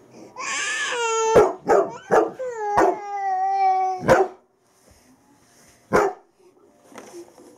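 Young Bernese Mountain Dog howling, a long high pitched call that falls slightly, broken by several sharp barks over the first four seconds, then a single bark about six seconds in. The dog is worked up by the video camera.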